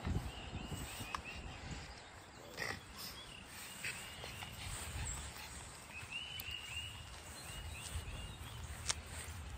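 Pug snorting and grunting through its nose while holding a tennis ball in its mouth, with a few sharp clicks. Runs of short high chirps come in and out.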